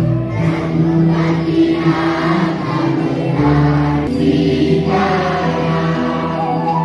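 Devotional chant sung by a group of voices with musical accompaniment, the notes long and held.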